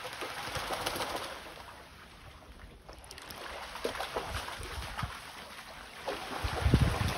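Yellow Labrador splashing through shallow sea water, its legs and paws slapping the water in irregular splashes as it lunges at fish, with the loudest splash near the end.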